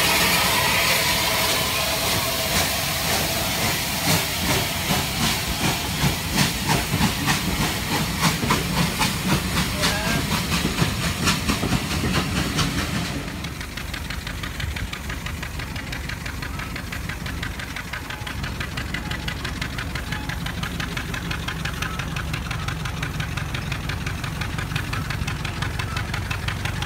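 Bulleid Light Pacific steam locomotive pulling away with a strong hiss of steam and exhaust beats that quicken as it gets under way. About halfway through it changes abruptly to a small narrow-gauge locomotive's engine running with a steady knocking beat.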